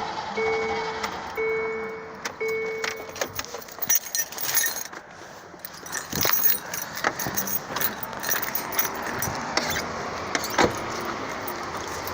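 An electronic warning chime beeps three times, about a second apart, and stops about three seconds in. Then keys jangle and click in the ignition, and the engine does not run.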